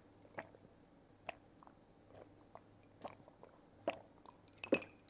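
Mouth sounds of someone sipping a drink through a straw and swallowing: a string of small, faint gulps and clicks about every half second, a little louder near the end.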